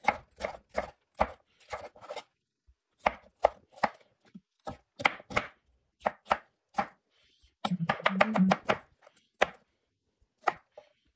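Chef's knife chopping red bell pepper on a wooden cutting board: sharp, irregular strokes, about two or three a second, with a busier, denser stretch about eight seconds in.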